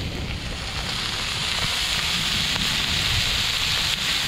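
Salmon, fish pieces and shrimp sizzling on a large round black griddle pan over a wood fire, a steady hiss that grows a little louder, with a few faint crackles from the burning wood.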